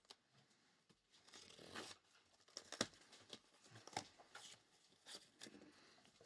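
A cardboard shipping case being opened by hand, faint: irregular tearing, scraping and rustling of cardboard and tape, with scattered light knocks.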